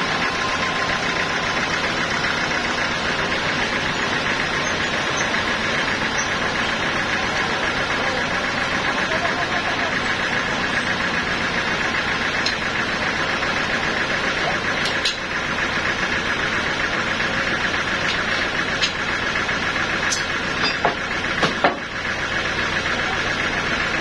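Band sawmill running steadily as it saws a mahogany log into long boards, an even, continuous machine noise. A few sharp knocks come in the last third.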